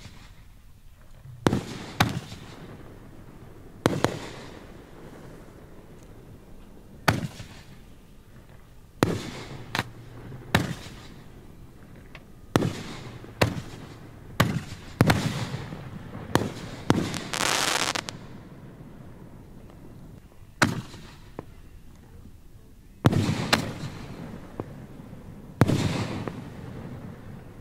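Display fireworks bursting overhead: about eighteen sharp bangs at uneven intervals, each trailing off, with a burst of hissing crackle lasting about a second and a half past the middle.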